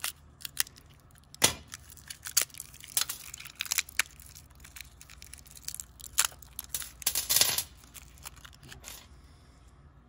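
A small clear plastic hardware bag being cut open with a pocket knife and crinkled, with small metal mounting brackets clicking against each other. Scattered sharp clicks, the loudest about a second and a half in, and a longer crinkling rustle about seven seconds in.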